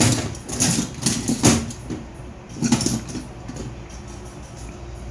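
Small metal parts and tools clinking and knocking as they are handled, several sharp clicks in the first second and a half and another cluster near three seconds, over a low steady hum.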